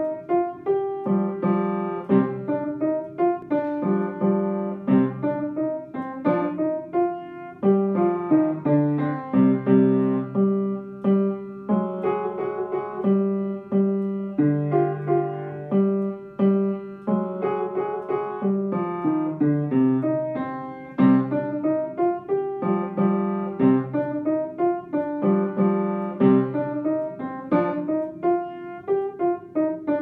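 Upright piano played with both hands: a simple beginner's Halloween piece, its notes and chords struck in a steady rhythm in the low and middle range.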